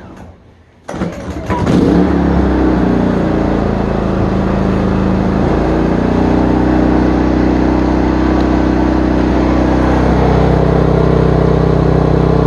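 GENMAX portable generator's small gasoline engine being pull-started: it catches about two seconds in and settles into a steady run.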